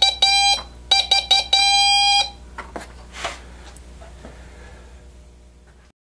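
Morse code (CW) beeps: a single steady tone a little under 800 Hz keyed in short dots and longer dashes, ending with a long dash about two seconds in. After that only faint hiss and a few soft clicks until the sound cuts off near the end.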